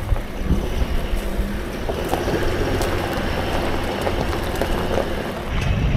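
A four-wheel drive driving on a dirt offroad track: steady engine and tyre noise, with a few scattered knocks.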